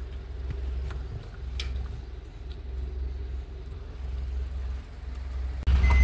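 Low, steady rumble of a motor vehicle's engine with a few faint clicks, suddenly growing louder near the end.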